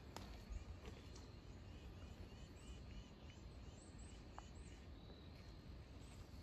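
Faint bird calling: a quick series of short, evenly repeated chirps, then a few higher chirps, over a low steady rumble.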